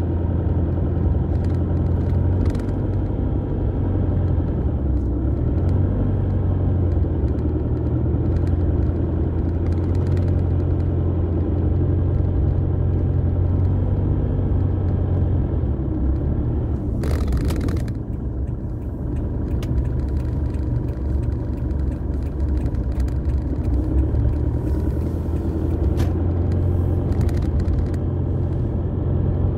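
Steady low rumble of a car's engine and tyres on a rough dirt road, heard from inside the cabin while driving. A brief hiss comes a little past halfway.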